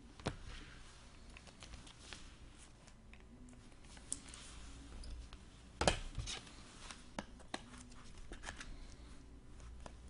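Trading cards and plastic card holders being handled on a table: light scrapes and rustles with scattered taps and clicks, the sharpest knock about six seconds in.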